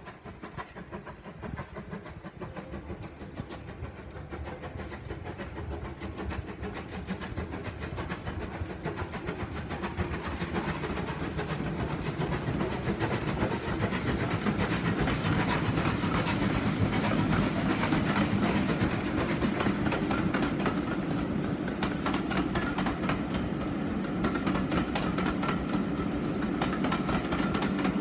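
Steam locomotive 34027 Taw Valley, a rebuilt Bulleid West Country class Pacific, approaching with its train. It grows steadily louder over about the first half, then stays loud, with a fast rhythmic clatter from the wheels on the rails over a low rumble.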